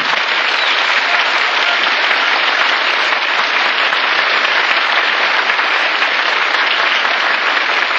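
Radio studio audience applauding steadily.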